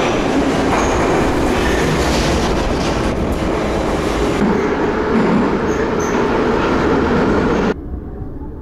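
A Samara metro train of the blue Soviet 81-717/714 type pulls into an underground station along the platform. It makes a steady loud rumble of wheels and running gear, with a few brief, faint high wheel squeals. The sound cuts off suddenly near the end.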